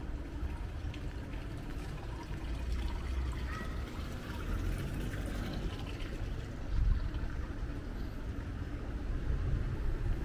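City street ambience: a steady low rumble of distant traffic, with wind buffeting the microphone.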